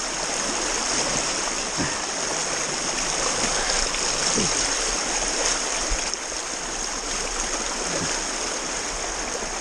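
Rushing stream water, a steady even hiss, with a few brief splashes as someone wades into the current.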